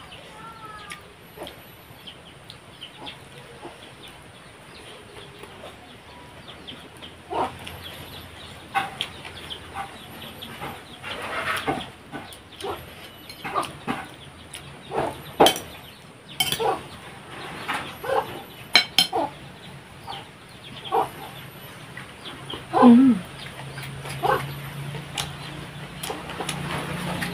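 Chickens clucking, a run of short, sharp clucks, with a low hum growing louder near the end.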